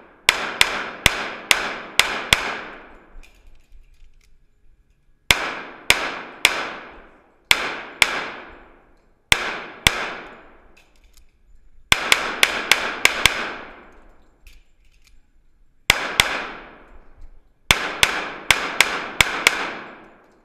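Sig Sauer 1911 pistol fired in fast strings of shots, several quick shots at a time with pauses of a second or two between strings. Each shot rings out with a long echo off the hard walls and ceiling of an indoor range.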